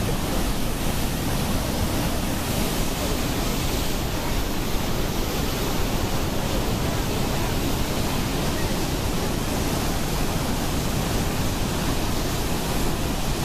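Hydroelectric dam spillway discharging spring floodwater: a loud, steady rush of water pouring through the open gates and churning in the tailrace below, unchanging throughout.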